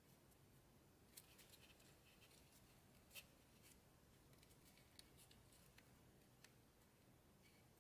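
Faint, scattered crinkles and crackles of origami paper being pinched and creased by hand, with a sharper crackle about three seconds in, over near-silent room tone.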